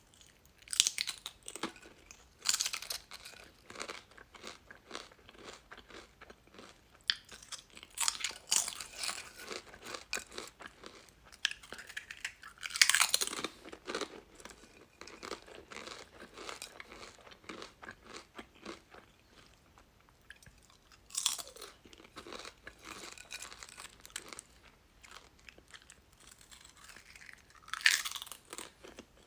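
Potato chips being bitten and chewed close to the microphone: loud sharp crunches every few seconds, the strongest about thirteen seconds in, with steady crackly chewing between bites.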